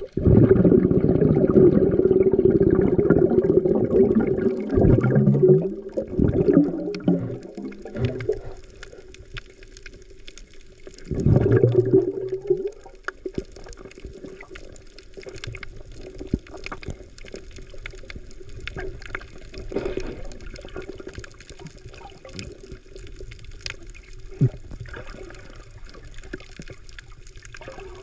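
Shallow sea water sloshing and splashing around someone wading through it. It is loud for about the first eight seconds, surges again briefly around eleven seconds, then settles to softer lapping with small splashes.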